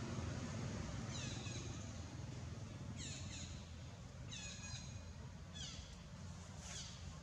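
Short, high-pitched animal calls, each sliding downward in pitch, repeating about once every second or so over a steady low hum.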